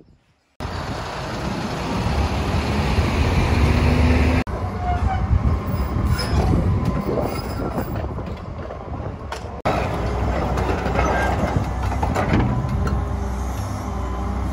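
Liebherr 954 crawler excavator's diesel engine running under load, a heavy low rumble, with the clank and squeal of its steel tracks as it moves. The sound jumps suddenly about four and a half and nine and a half seconds in, where the footage is cut.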